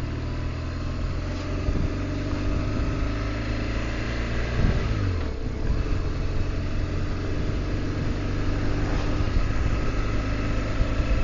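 2008 BMW R1200GS Adventure's boxer-twin engine running steadily on the move. About four and a half seconds in, the engine note dips briefly.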